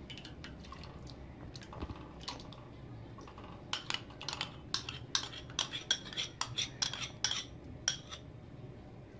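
Metal spoon scraping and clinking against a glass bowl as boiled rice is scooped out into milk. A quick run of light taps comes in the second half.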